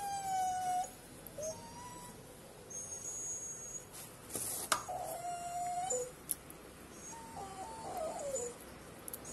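Dog whimpering in pain as Cordylobia (tumbu fly) larvae are squeezed out of the boils in its skin: a long falling whine at the start, then several shorter, wavering whines. A single sharp click about halfway through.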